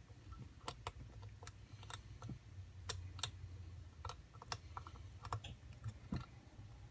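Irregular small sharp clicks and taps of a lock pick working the pin stack of an ABUS padlock under tension, about two or three clicks a second, over a faint steady hum.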